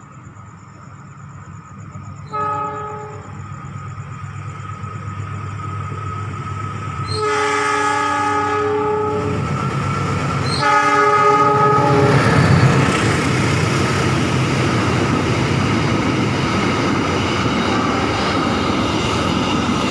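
Diesel-electric locomotive air horn sounded three times as the train approaches: a short blast, then a longer one of about two seconds, then another shorter one. After the third blast the train passes close by, and the loud rumble of the engine and wheels on the rails runs on.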